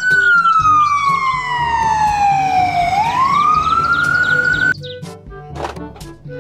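Ambulance siren in a slow wail: one long fall in pitch, then a rise, cut off abruptly after nearly five seconds. A light background music bed runs beneath it and goes on alone, with a few clicks, after the siren stops.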